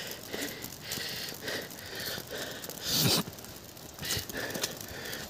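Footsteps crunching on a snow-covered path, mixed with the walker's breathing in the cold, with a louder breath about three seconds in.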